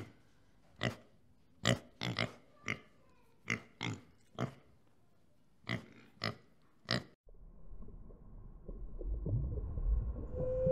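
Pig grunting: about a dozen short, sharp grunts at uneven intervals over some seven seconds. Then a low rumbling noise takes over and swells towards the end.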